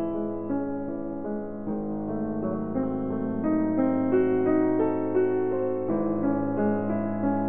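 Background piano music: a slow melody of held notes, with the notes changing about every half second.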